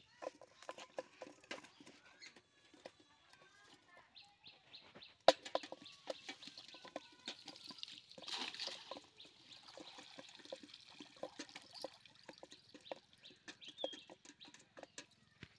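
A nylon cast net being handled and thrown into a pond: small rattles and clicks throughout, one sharp knock about five seconds in, and a short splash as the net lands in the water around eight seconds in. Birds chirp in the background.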